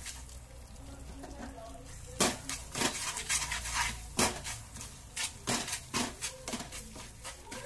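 Wooden spatula scraping and knocking against a nonstick frying pan while stirring a thick khoya and sugar mixture, in irregular strokes about a second apart, as the sugar melts into the khoya.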